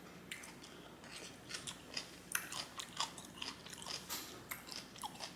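A person chewing food with the mouth close to the microphone, with short irregular clicks and smacks several times a second.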